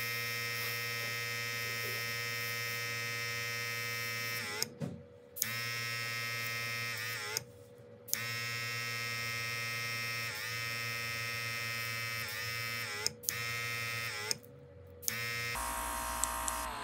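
Built-in mini compressor of a cordless rechargeable airbrush kit running with a steady buzz. It drops out briefly four times, gliding back up in pitch each time it returns.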